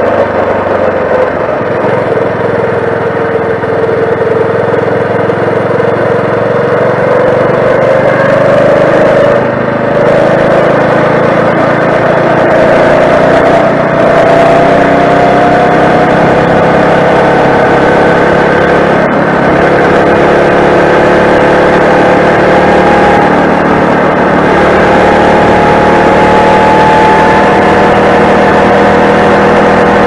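Four-stroke motorized bicycle engine running under load while riding, its pitch climbing steadily as the bike gathers speed, then holding high. It drops off briefly twice, about ten and about nineteen seconds in.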